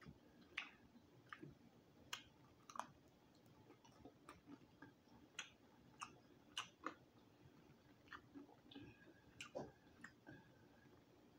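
Quiet mouth sounds of eating crispy roasted quail off the bone: soft, irregular clicks and smacks of lips and teeth as the meat is nibbled and chewed.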